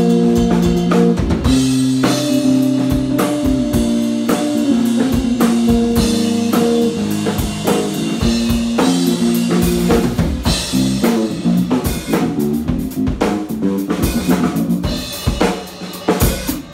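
Live electric bass and drum kit playing together: held, overdriven bass notes changing every second or so over a driving beat of kick, snare and cymbals, the bass through a Hartke amp stack. Near the end the playing breaks into a few separate accented hits.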